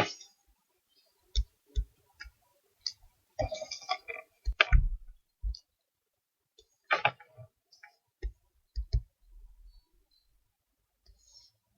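Irregular clicks and short clattering knocks from working a computer mouse and keyboard at a desk, several separate clicks spaced unevenly, with a few louder bursts of handling noise near the middle.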